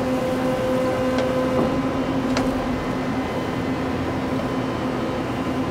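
Mori Seiki SL-75A CNC turning center running idle: a steady machine hum with a couple of faint clicks.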